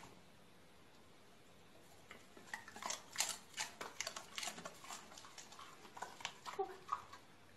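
A run of light clicks and clatters, starting about two seconds in, after a near-silent start.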